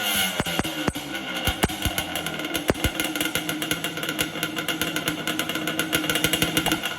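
Music with a pounding drum beat.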